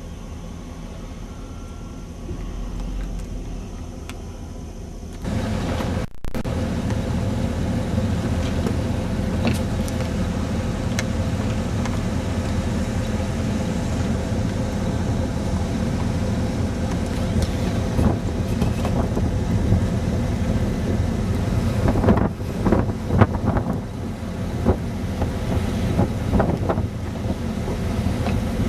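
A motor vehicle's engine running with a steady low rumble, which jumps louder about five seconds in. A few sharp knocks come near the end.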